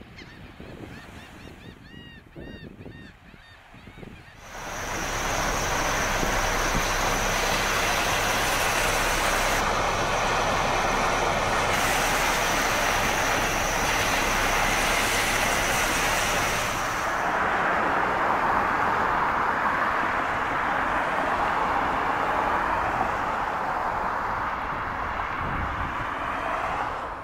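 Faint gull calls over a quiet shore for the first few seconds. Then a sudden switch to loud, steady storm noise of wind and heavy rain, with traffic passing on a flooded road, lasting almost to the end. A brief held tone sounds about ten seconds in.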